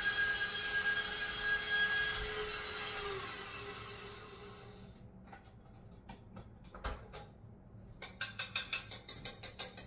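Electric stand mixer motor whirring, then dropping in pitch and dying away about four seconds in. A few clicks follow, and near the end a utensil scrapes and taps rapidly inside the stainless steel mixing bowl, about four strokes a second.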